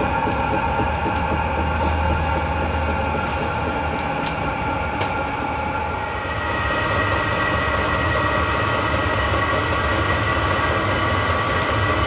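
Vevor all-in-one diesel heater running through its start-up: a steady fan whine over a low rumble. The whine grows stronger about halfway through, and from then on a regular faint ticking from the fuel pump comes in.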